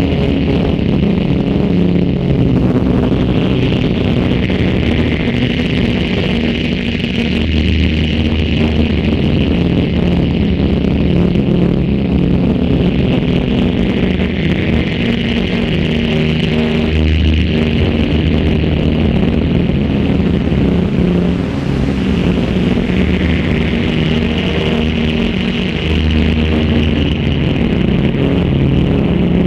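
Loud electronic drone played from a laptop: a dense low hum of held tones under a band of high hiss that swells in and dies away three times.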